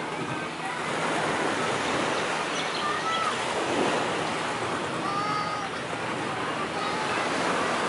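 Steady wash of sea surf on a beach.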